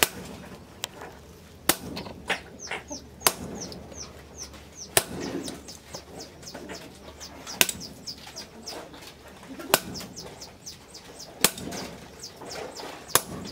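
Sledgehammer blows on red-hot car-axle steel held on an anvil, driven through a tongs-held hot set: about eight sharp strikes, one and a half to two and a half seconds apart. Small birds chirp between the blows in quick, falling notes.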